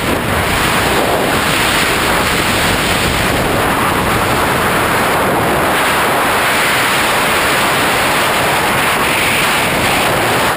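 Loud, steady rush of wind blasting across the microphone, the roar of fast airflow during a skydiving jump.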